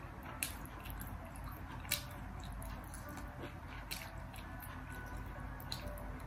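Close-up eating sounds of a person chewing fried fishball and kikiam, with a metal fork clicking against a glass plate about four times.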